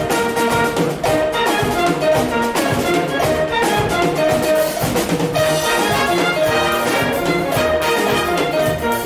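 Concert wind band playing a Cuban-style piece, brass such as trumpets and trombones carrying the tune over a steady percussion beat.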